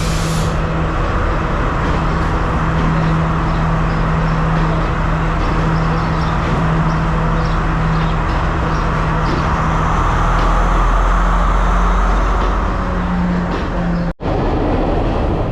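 Passenger train running, heard from inside a carriage: a steady rumble of wheels on rails with a low, even drone. The sound drops out for an instant near the end.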